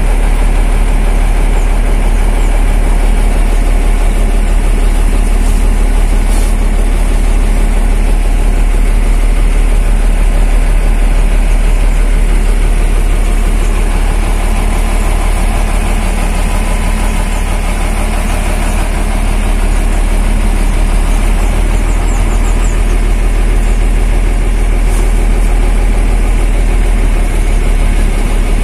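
Mercedes-Benz 1417 truck's diesel engine idling steadily on a warm-up run, heard from inside the cab.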